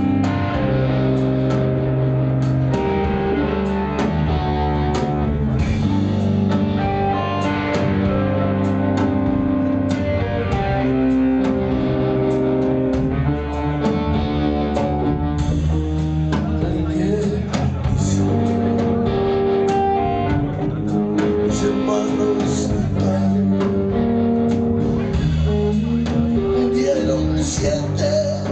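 Live rock band playing, with guitars to the fore.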